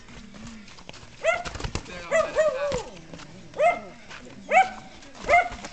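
A dog barking: about seven short barks in irregular groups, starting about a second in.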